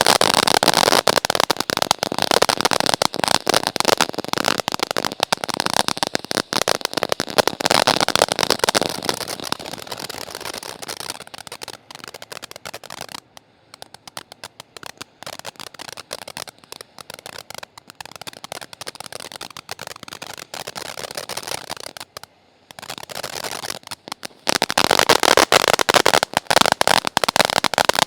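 Winda Fireworks Dancing with Ghost firework fountain crackling: a dense, rapid crackle that dies down to a thinner crackle a little under halfway through, then surges loud again near the end.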